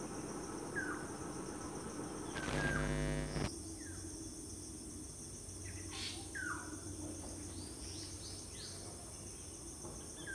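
Faint bird chirps: several short calls that sweep downward in pitch, over a steady high hiss. About two and a half seconds in, a louder pitched buzz lasts about a second.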